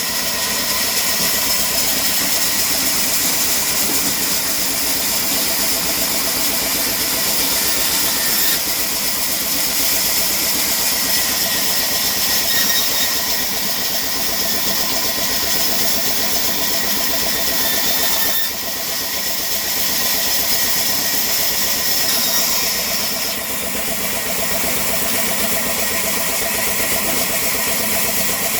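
Sawmill machinery running steadily, a loud machine drone with a high hiss over it and a few sudden shifts in level.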